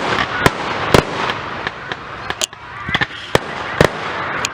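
Fireworks display going off: a string of sharp bangs and pops, about a dozen in four seconds and unevenly spaced, over a steady background din.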